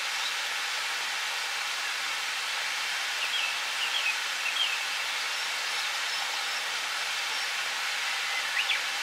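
Steady outdoor hiss with a small bird chirping in short calls, a handful about three to five seconds in and a couple more near the end.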